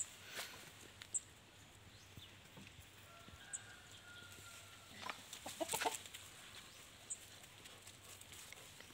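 Faint bird calls in a quiet yard: a few short high chirps and, about five to six seconds in, a brief run of lower calls, the loudest sound here.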